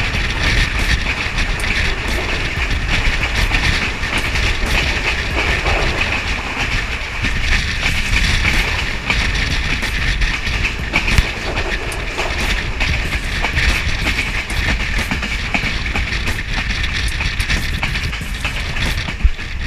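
Passenger train running along the track, heard from an open carriage window: a steady loud rumble and rattle with wheels clicking over the rail joints.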